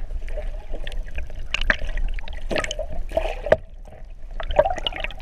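Water splashing and sloshing in short irregular bursts, over a steady low rumble.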